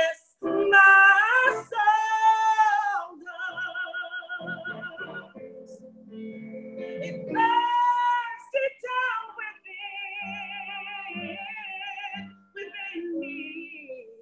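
A woman singing a worship song solo, holding long notes with vibrato in several phrases with short breaks between them.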